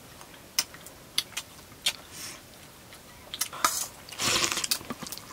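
Someone eating buffalo dry meat curry and rice up close: chewing with scattered sharp mouth clicks and smacks, and a longer, louder noisy stretch about four seconds in.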